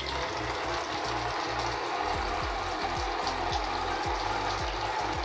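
Stream of water spraying onto and through an air cooler's cooling pads, a steady hiss of splashing water. Background music with a steady beat runs underneath.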